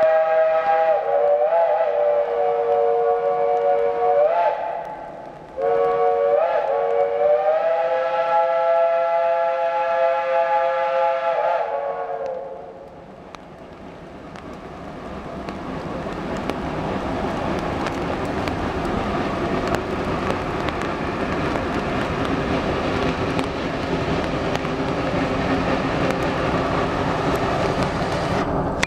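Geared steam locomotive's chime whistle blowing two long blasts, the second about seven seconds long. Then the locomotive's working exhaust and running gear grow steadily louder as it approaches.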